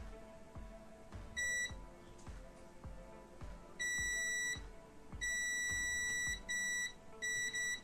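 Digital multimeter's continuity buzzer beeping, a steady high tone: one short beep about a second and a half in, then longer beeps and several quick ones near the end as the probes touch the legs of an inverter's input MOSFET. The beep marks a near-zero reading across the MOSFET, which seems faulty.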